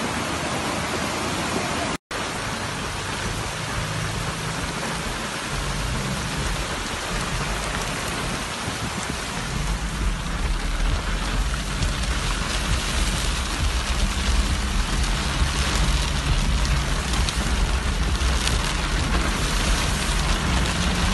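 Steady rain pouring. It cuts out completely for an instant about two seconds in, and a low rumble builds underneath from about halfway.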